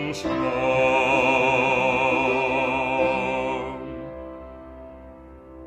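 A man's voice holds a long final note with wide vibrato over piano chords, stopping after about three and a half seconds. The last piano chord then rings on, fading away.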